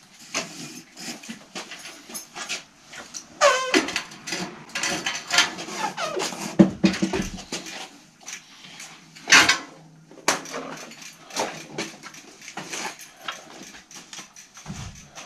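A vintage Hercules bicycle being lifted off a workshop repair stand and handled: irregular metal clattering and clicks, with a short squeak about three and a half seconds in and a sharp knock a little past the middle.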